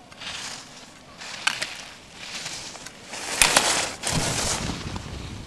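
Skis scraping and hissing on hard-packed snow through a run of slalom turns, about one turn a second, with two sharp clacks, the second louder, as the skier knocks the slalom gate poles. A low rumble joins near the end.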